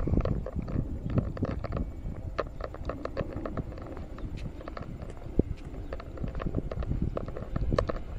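Footsteps of a person walking on an asphalt road, heard as irregular clicks and scuffs several times a second over a steady low rumble.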